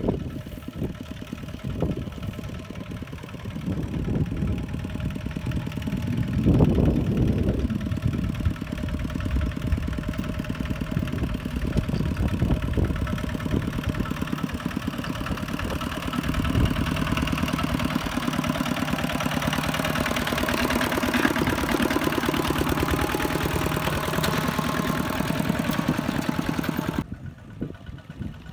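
Kubota ZT155 walking tractor's single-cylinder diesel engine chugging steadily under the load of a trailer of rice sacks, with a louder surge about six to seven seconds in. The sound drops away abruptly near the end.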